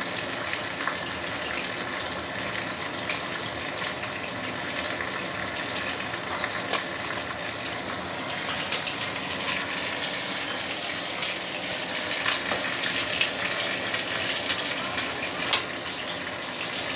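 A turmeric-coated black pomfret shallow-frying in hot oil in a wok at medium-high heat, a steady sizzle with a couple of sharp ticks.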